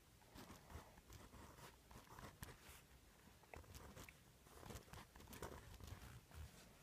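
Faint scratching and tapping of two pens writing and drawing on paper at the same time, in short irregular strokes.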